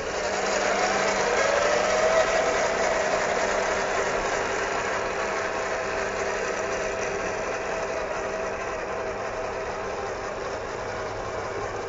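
Small electric motor and gears of a radio-controlled scale off-road truck whining under throttle. The pitch rises about a second in, then holds steady while the level slowly falls away.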